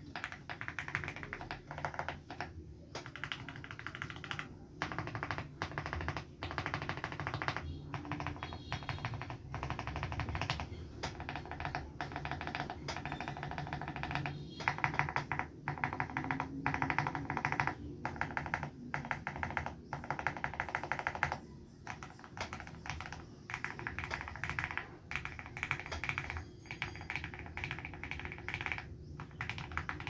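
Feker Alice 80 mechanical keyboard with Akko CS Jelly Black switches: fast typing at first, then modifier keys pressed over and over in quick runs with brief pauses between.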